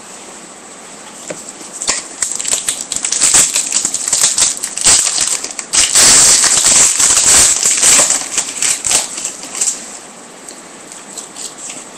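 Foil trading-card pack being torn open and its wrapper crinkled, a dense crackling rustle that builds about two seconds in, is loudest past the middle, and dies away near the end.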